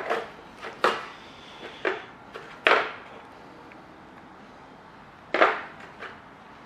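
Hand tools clattering: a series of sharp knocks, about five in the first three seconds and one more a little after five seconds, as sockets and tools are handled and set down.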